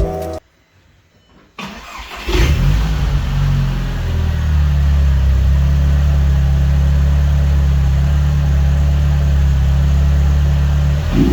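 VW Polo 9N3 GTI's turbocharged 1.8-litre four-cylinder engine, breathing through a newly fitted cone filter, starting up about two seconds in and then idling steadily. A short rev near the end.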